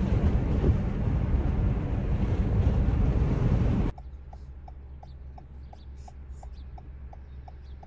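Loud rushing wind and road noise in a moving car, cutting off suddenly about four seconds in. Then a quiet low engine hum with a car turn signal ticking evenly, about three ticks a second.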